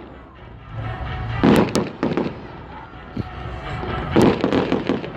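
Aerial fireworks shells bursting: a loud bang about a second and a half in followed by crackling, a lone thump, then a quick run of bangs near the end.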